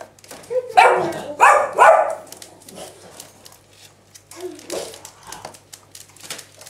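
French bulldog barking three times in quick succession, about one to two seconds in.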